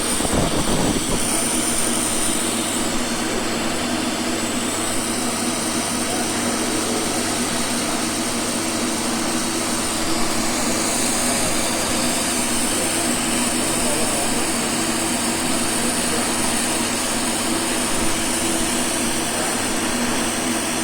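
TIG welding arc burning steadily at about 120 amps under argon: a continuous hiss and buzz with a steady electrical hum underneath.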